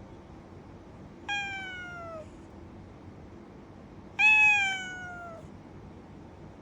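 A domestic cat meowing twice, each a drawn-out call falling in pitch; the second, about four seconds in, is louder than the first.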